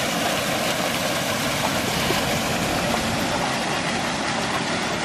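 Steady rushing of a shallow river running over stones, with a lurcher splashing as it wades and paws at the riverbed.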